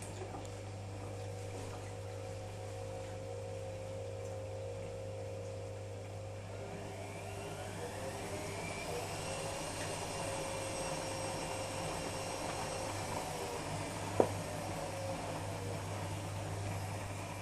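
Privileg Sensation 9415 washing machine running with a steady motor hum. About seven seconds in, a whine rises in pitch and grows a little louder as the drum speeds up, and there is a single sharp click near the end.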